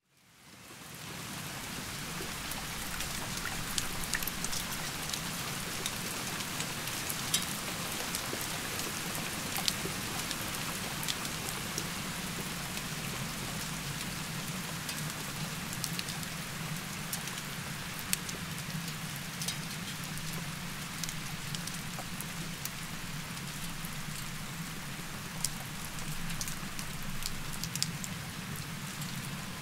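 Heavy rain falling steadily, with frequent sharp taps of single drops striking close by.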